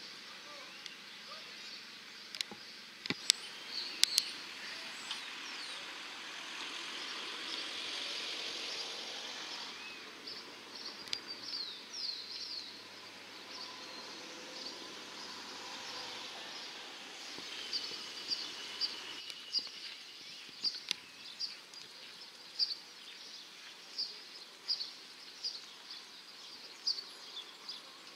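Open-air background hiss with small birds chirping again and again in short high notes. A few sharp clicks stand out about three to four seconds in.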